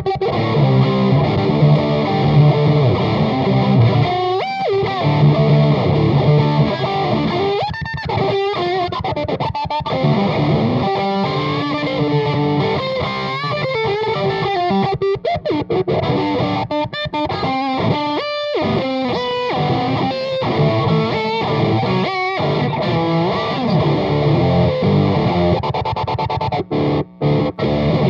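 Distorted electric guitar played through a Bogner Burnley distortion pedal into an Ampeg GVT5H valve amp on low power and a Jet City 2x12 cabinet with Eminence speakers. It plays rock riffs that mix chords and single-note lines, with a couple of brief stops near the end.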